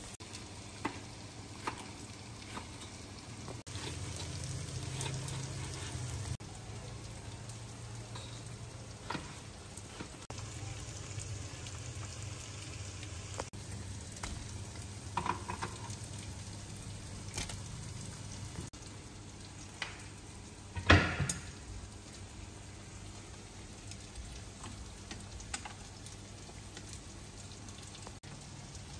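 Food sizzling in a frying pan on the hob, with scattered taps and clinks of knife and cooking utensils and one louder clatter about twenty seconds in.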